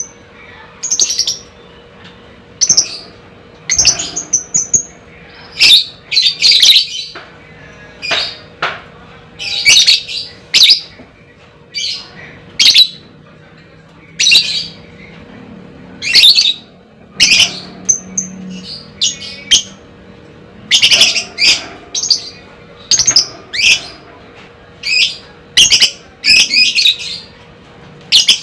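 Lovebird calling with short, sharp high-pitched chirps and squawks, in irregular clusters of one or two calls a second.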